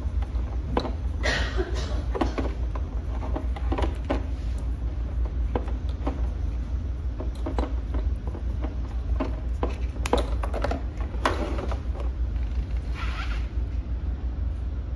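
Black PVC electrical tape being pulled off its roll and wrapped around spliced scooter wires, in short rasps among small clicks and rustles of the wires being handled. A steady low hum runs underneath.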